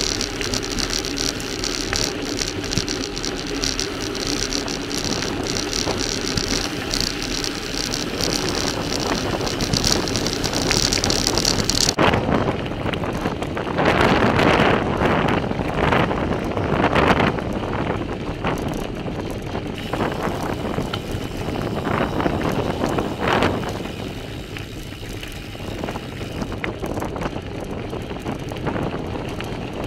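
Bicycle tyres rolling over a gravel track, with wind buffeting the microphone of a camera mounted on the bike. The sound changes abruptly about twelve seconds in, turning rougher with louder swells.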